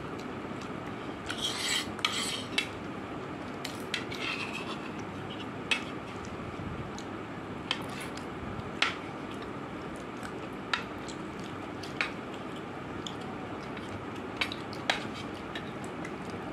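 Metal spoons and forks clicking and scraping against a plastic plate while pasta is eaten, with short sharp clicks every second or two over steady background noise.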